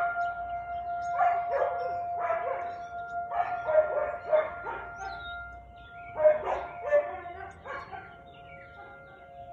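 Husky barking repeatedly, in short groups of one to three barks, falling silent about eight seconds in.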